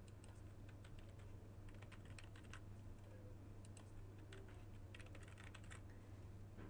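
Faint typing on a computer keyboard: several short runs of quick keystrokes with pauses between them, over a steady low hum.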